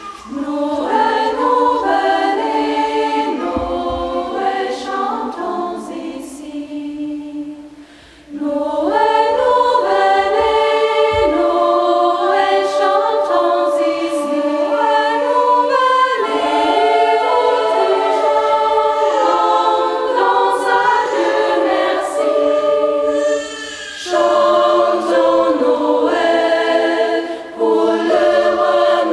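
Women's choir singing in several parts at once, in long phrases broken by brief pauses about eight seconds in and twice near the end.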